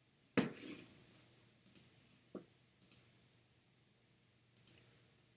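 Computer mouse clicks: a louder knock about half a second in, then several quick clicks, mostly in pairs, spread over the next few seconds.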